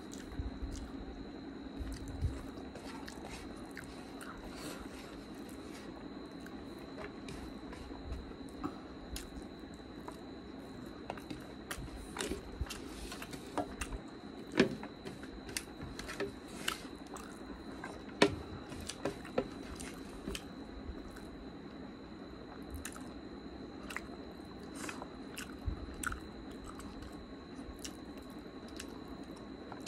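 Close-up eating sounds: chewing and wet mouth clicks, with fingers pinching and scraping food off a plate. Scattered sharp clicks run throughout, and two are louder around the middle.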